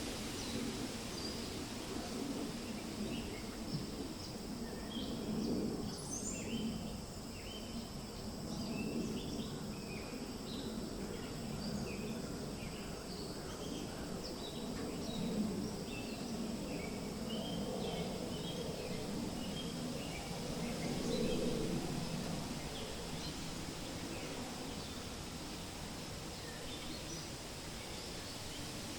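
Forest ambience: wind rustling through leaves as a steady rush that swells and eases, with small birds giving many short, high chirps through roughly the first two-thirds.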